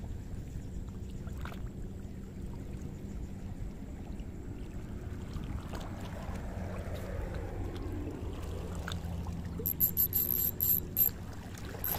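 A steady low hum runs underneath. About ten seconds in, a spinning reel's drag gives several short, high-pitched bursts of clicking as line is pulled out on a squid strike.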